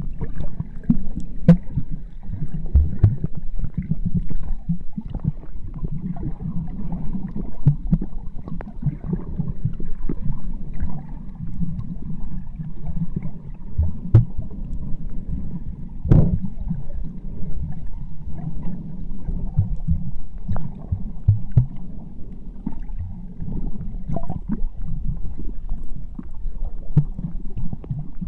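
Muffled underwater noise picked up by a camera held below the surface: a steady low rumble of moving water with frequent small clicks and knocks, and one louder knock about sixteen seconds in.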